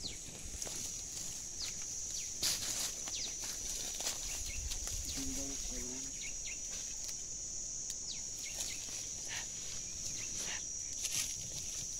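Steady high-pitched insect drone of cicadas or crickets in dry scrub, with scattered snaps and rustles of branches being pushed aside.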